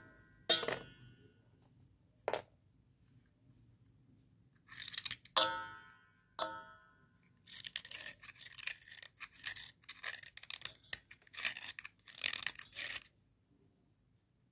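Wet slate pencil being broken and crunched by hand over a stainless steel bowl. In the first few seconds pieces strike the steel bowl with short metallic rings, the loudest about five seconds in, then comes about five seconds of dense crackling and crunching that stops shortly before the end.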